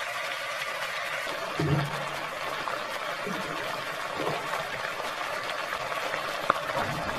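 Pieces of duck meat sizzling steadily in hot oil in a pot as they sear and firm up, with a single light tap near the end.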